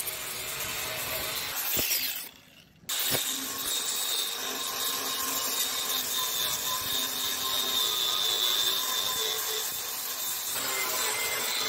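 A power tool running steadily with a high whine over a harsh rushing noise, cutting out briefly about two seconds in.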